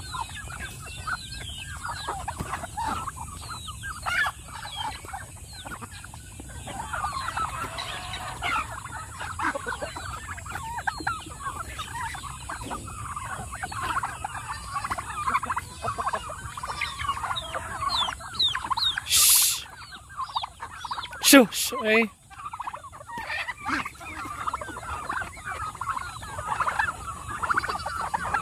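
Mixed flock of domestic turkeys and chickens feeding together: many short high calls and clucks overlapping throughout. A brief loud burst of noise about two-thirds of the way in is followed a couple of seconds later by two sharp cries.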